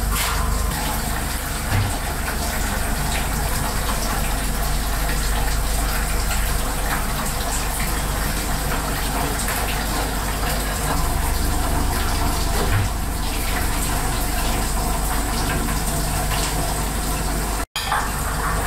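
Water running steadily, a continuous rush, with faint clicks of kitchen work. The sound cuts out for an instant near the end.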